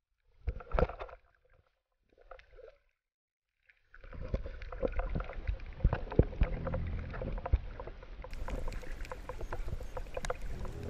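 Underwater water noise: a couple of brief muffled swishes, then from about four seconds in a continuous muffled wash of moving water with frequent sharp crackling clicks.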